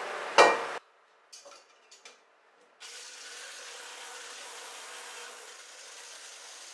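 A loud knock with handling noise in the first second, a couple of small clicks, then from about three seconds in a handheld electric whisk (a hand-blender motor with a wire whisk attachment) runs steadily, whipping cream in a plastic beaker.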